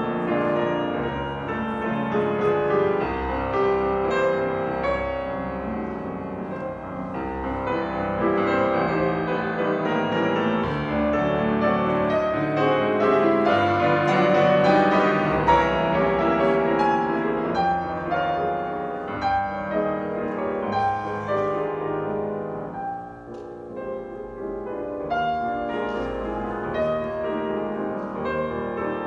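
Grand piano played solo in a classical style, a dense run of many notes that grows louder toward the middle and eases off briefly about three-quarters of the way through before going on.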